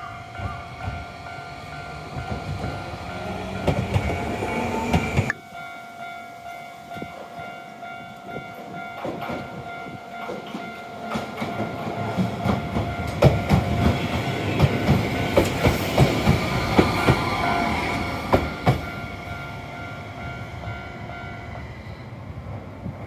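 Tokyu Setagaya Line 300-series trams running on the rails, the sound dropping abruptly about five seconds in. Later a tram passes close by with a rapid clatter of wheels over rail joints. Through most of this a level-crossing warning bell rings steadily, stopping shortly before the end.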